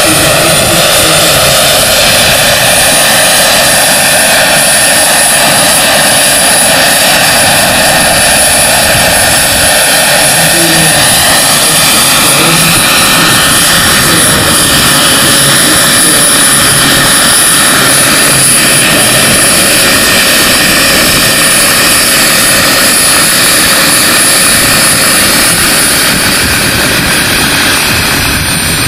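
Turbine-powered superscale R/C model of a Lama SA 315B helicopter running at flight power, a Jakadofsky model turbine giving a steady high whine over the whirr of the rotors. The sound holds steady and eases off slightly near the end.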